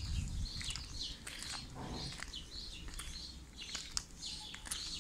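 Small birds chirping: many short, high chirps scattered throughout, over a low rumble.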